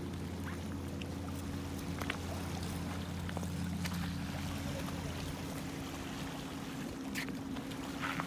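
Motorboat engine droning steadily on the lake, with a few light clicks of stones underfoot.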